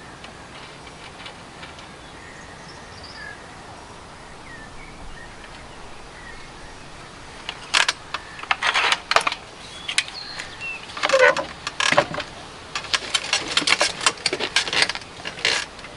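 Clicks, knocks and metallic rattles of a Remington Warhawk .22 spring-piston air rifle being loaded with a pellet and handled, starting about halfway through and coming thick and irregular, after a quiet stretch of outdoor background with a few faint bird chirps.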